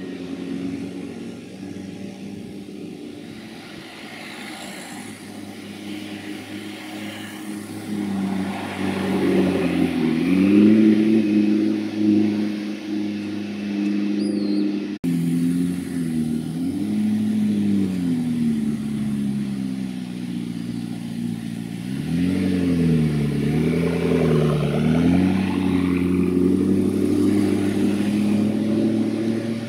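McLaren MP4-12C's twin-turbo V8 pulling away at low speed, the revs rising and falling repeatedly in short accelerations. The sound drops out for a moment about halfway through, then more revving.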